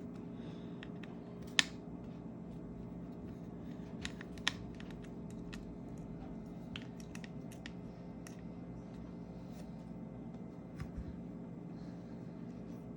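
Small scattered clicks and ticks of a precision screwdriver and tiny screws against an iPhone's metal parts, with one sharper click about one and a half seconds in and a few more around four seconds, over a steady low hum.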